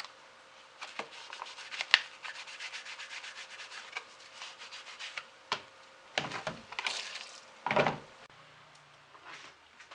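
Scrubbing on a kitchen exhaust fan's blades and frame: runs of quick, even rubbing strokes with a few sharper knocks, dying away near the end.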